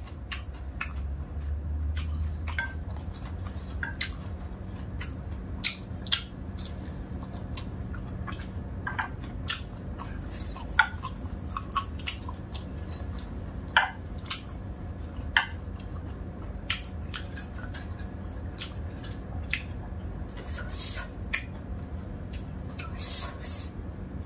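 Close-up eating sounds: chewing dry instant noodles, with scattered sharp clicks and taps of chopsticks against the plate, over a low steady hum.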